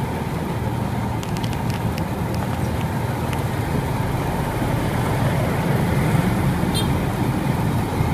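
Steady street traffic rumble, with a few faint clicks a little over a second in and a brief high chirp about seven seconds in.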